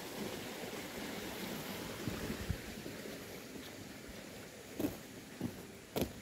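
Steady rush of water, thinning a little in the second half, with several dull knocks over the last few seconds, the loudest about six seconds in.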